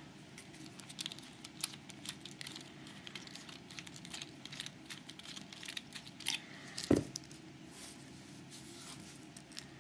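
Small metal clicks, taps and scrapes of a padlock's parts being handled and worked apart by hand, with one louder knock about seven seconds in.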